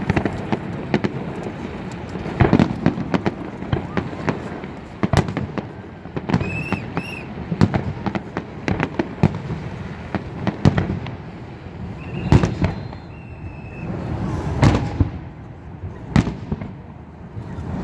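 Aerial fireworks bursting overhead: irregular sharp bangs, sometimes several close together, with crackling between them.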